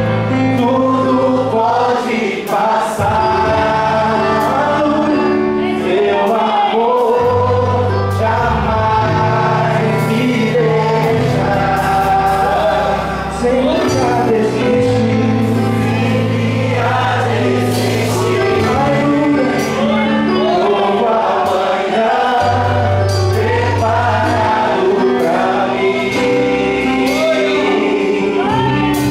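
Live gospel worship song sung in Portuguese: a male lead vocal with backing singers, over keyboard, electric bass and drums.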